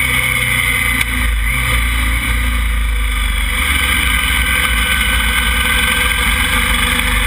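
KTM motorcycle running at road speed and slowing down, its engine note mixed with steady wind rush on the onboard camera's microphone.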